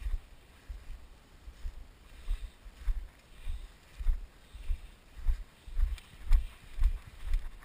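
Footsteps of a person walking on grass, heard as dull low thumps through a body-worn camera, about two a second and fairly even.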